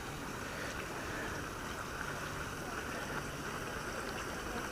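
Water pouring steadily out of a canal lock outlet, a constant rushing noise, with a faint low hum underneath.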